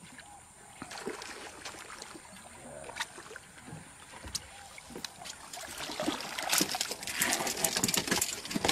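Water splashing and scattered knocks on a small wooden boat, turning to a busier run of splashing and rattling in the last few seconds.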